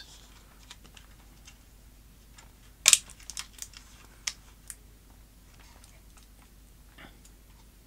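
Scattered small clicks and taps as the cables and plastic connectors of a dismantled LCD monitor are handled on its sheet-metal chassis, with one sharper, louder click about three seconds in.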